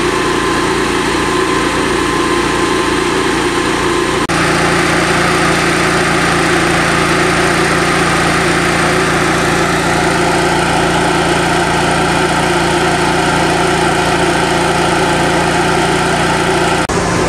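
Engine-driven firefighting ventilation fan (positive-pressure blower) running steadily: a constant engine hum under the rush of the fan's air. The sound shifts abruptly to a slightly louder, fuller hum about four seconds in.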